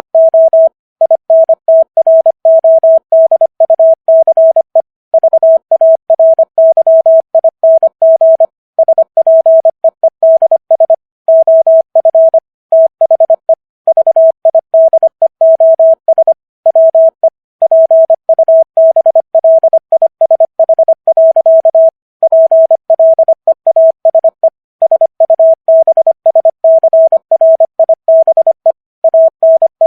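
Morse code at 25 words per minute: a single steady mid-pitched tone keyed rapidly on and off in dots and dashes, with short pauses between letters and words.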